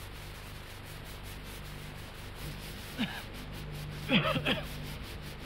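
A man stifling a cough, with short muffled coughing sounds about three seconds in and again around four seconds in, over a faint steady hiss.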